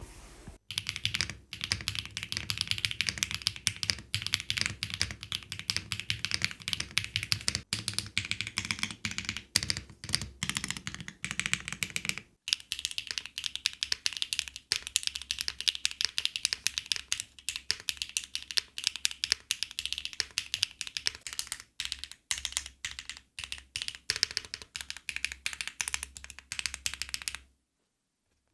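Typing sound test on a freshly built MODE Encore custom mechanical keyboard with HMX Sunset Gleam linear switches and ABS doubleshot cherry-profile keycaps: a steady stream of rapid keystroke clacks that pauses briefly about 12 seconds in and stops about a second before the end.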